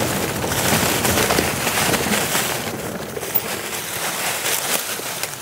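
Mountain bike rolling down a rough dirt trail: a steady rush of riding noise with many quick knocks and rattles as the bike goes over bumps.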